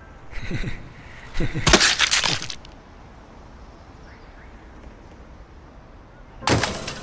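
Fight sound effects: crashing, shattering impacts. A short crash comes about half a second in, a louder, longer one around two seconds, and another sharp crash near the end.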